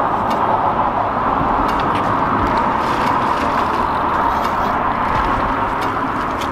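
Steady road-traffic noise, the even hiss of tyres on pavement, with no single vehicle standing out.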